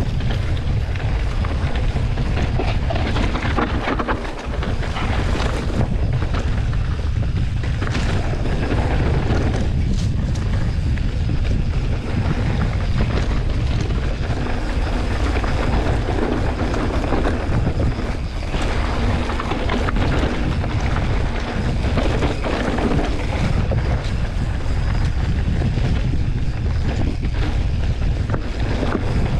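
Wind buffeting a camera microphone while riding a full-suspension mountain bike down a trail. There is a steady low rumble from tyres and ground, with occasional knocks and rattles from the bike over bumps.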